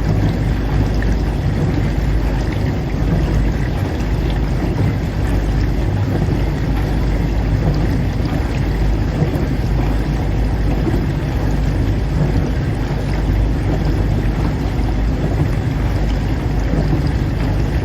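Dishwasher running: a steady low rumble with a churning water noise over it, unchanging throughout.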